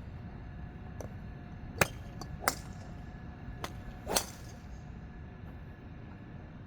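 Several sharp cracks of golf clubs striking balls, about six in all, the loudest about two, two and a half and four seconds in, over a steady low rumble.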